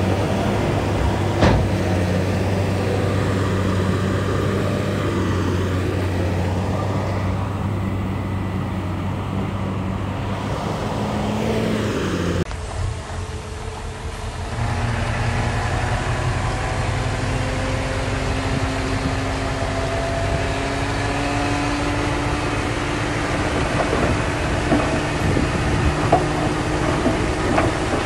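Diesel engines of heavy earthmoving machinery running steadily. About halfway through, the sound cuts to another machine's engine, with a slowly rising whine and a few metallic clanks near the end.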